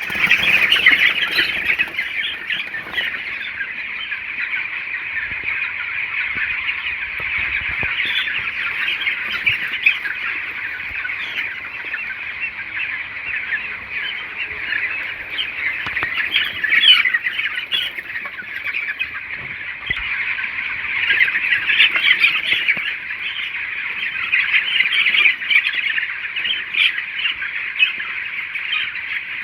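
A large flock of young chickens cheeping continuously, many high peeps overlapping into a steady chorus.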